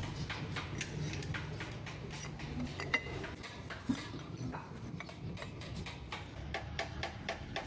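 Light metallic clicks and clinks of hand tools and engine parts being handled during engine assembly, with two sharper taps about three and four seconds in, over a steady low workshop hum.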